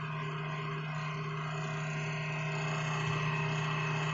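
Running desktop computer, its CPU cooler and case fans giving a steady hum with a strong low drone.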